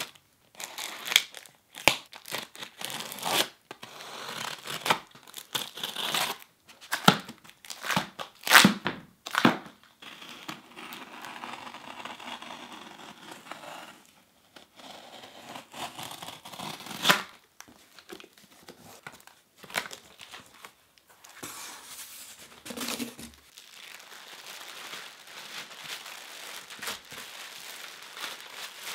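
Box cutter slicing packing tape along the seams of a cardboard shipping box: a run of sharp tearing rasps and scrapes. In the second half it gives way to an even rustle of clear plastic sheeting crinkling as the box is opened.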